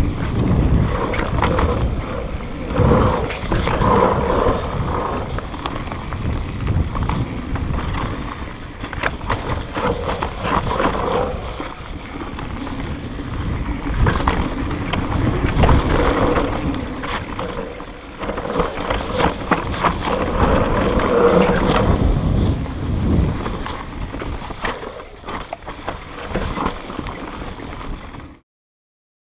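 Magura MT7 four-piston hydraulic disc brakes on a downhill mountain bike juddering under braking: a humming drone that swells and fades several times as the brakes are applied. Under it is the rumble of knobby tyres on a dirt trail and wind. The rider doesn't know what causes the judder.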